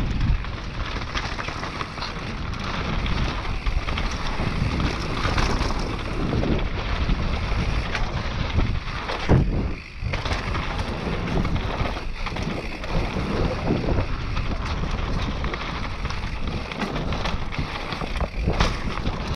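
Mountain bike descending a dirt enduro trail: wind buffeting the microphone over the steady rumble and rattle of tyres and bike, with one sharp knock about nine seconds in.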